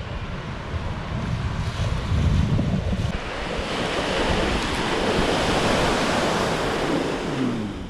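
Steady rushing noise, like wind on the microphone, becoming broader and hissier from about three seconds in.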